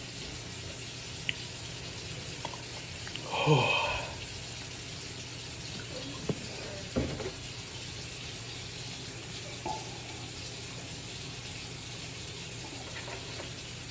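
Milk poured from a jug into a glass, with a groaned "oh" about three seconds in and a couple of light knocks a few seconds later, over a steady low hum and hiss.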